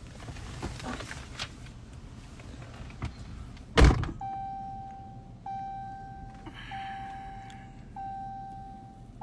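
A door thuds shut, then an electronic chime starts, one steady note repeating about every 1.3 seconds.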